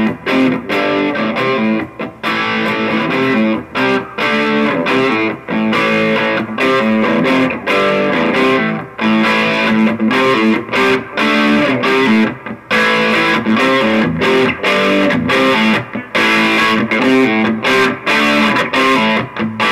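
Electric guitar played through a Shredhead distortion pedal into a cheap amplifier: distorted riffs and chords, broken by frequent brief stops between phrases.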